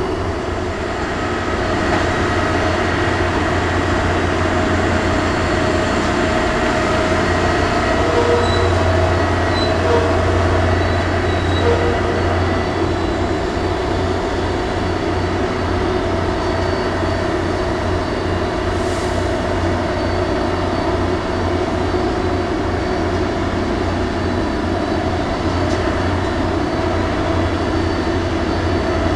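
Bucket crane's machinery running during ship unloading: a loud, steady mechanical drone with several steady humming tones over it, swelling a little about ten seconds in.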